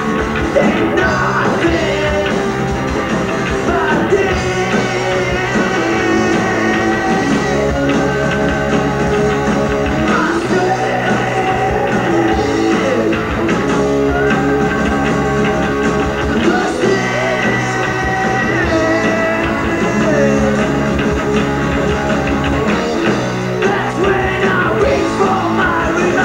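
Live rock band playing a song loudly throughout: guitar, bass and drums, with a male lead singer.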